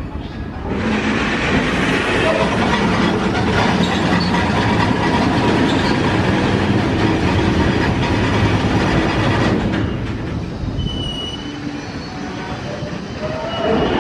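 A train running past on the rails: a loud rush of wheel and rail noise starts about a second in and falls away after about ten seconds, followed by a short high wheel squeal.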